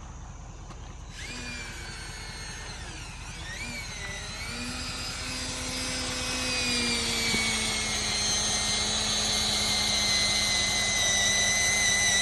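A machine running with a steady low rumble. From about a second in, a high whine joins it, wavers in pitch for a few seconds, then holds steady as the sound grows louder.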